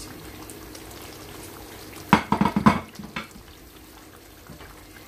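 Tomato stew simmering in a stainless steel pan as a wooden spoon stirs it, with a quick run of loud knocks from the spoon against the pan about two seconds in and one more shortly after.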